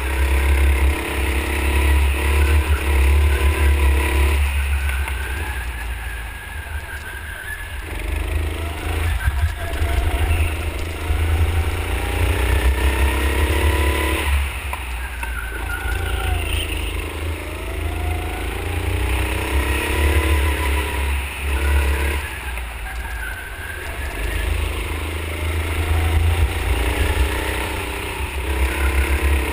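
Go-kart motor pulling through laps, its pitched whine rising along the straights and dropping away into each corner, over a steady low rumble.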